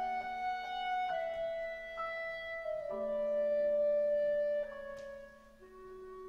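Slow instrumental passage: grand piano with a small orchestra holding long notes, the chord changing every second or so and growing softer near the end.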